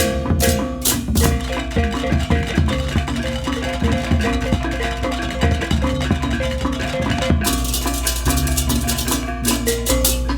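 Balinese baleganjur gamelan playing a fast, dense interlocking rhythm: crash cymbals (ceng-ceng), small tuned gong chimes (reyong), kendang drums and low gongs. About three quarters of the way in the cymbals thin out and a deep, sustained gong tone swells underneath.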